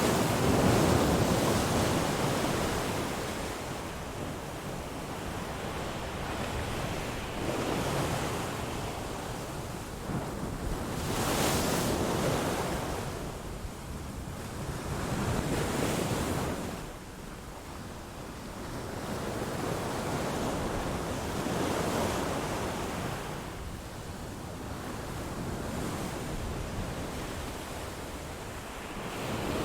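A rushing noise like surf washing in, swelling and fading about every four seconds.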